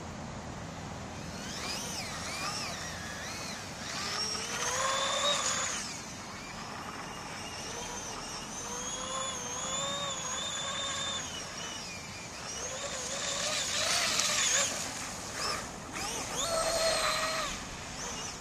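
Electric outboard motor of a Mystic 29 RC racing boat (Graupner outboard with a UL1 motor on a 4S battery) whining at speed across the water. The pitch rises and falls as the throttle is worked through runs and turns, with several louder stretches and quieter dips between them.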